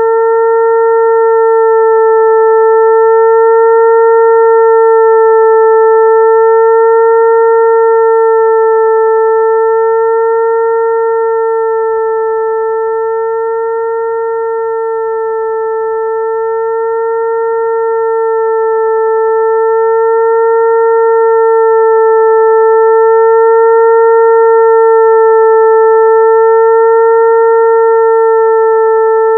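Electronic tone imitating a mosquito's wing hum, played to attract mosquitoes: one steady mid-pitched note with a few overtones, held without a break. Its loudness swells and fades slowly, dipping about halfway through.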